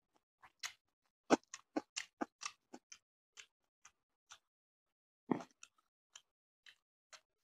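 Close-miked wet eating sounds of fish curry and rice eaten by hand: irregular smacks and clicks, a quick run of them about a second in, a louder one past the middle, then sparser ones.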